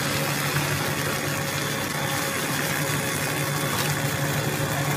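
Puffed-snack production line machinery running: a steady low hum with an even hiss over it.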